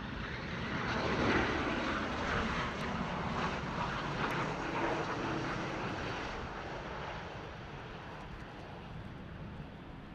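Gulfstream G650ER business jet's Rolls-Royce BR725 turbofan engines: a steady jet rush, loudest about a second in and slowly fading over the last few seconds.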